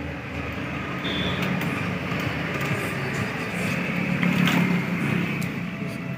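Steady background rumble and hum like road traffic, with a few faint clicks.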